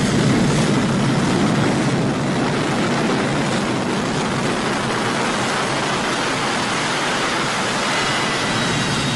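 Jet engine running at full power with its afterburner lit: a steady, loud rushing noise. A faint high whine comes in over the last few seconds.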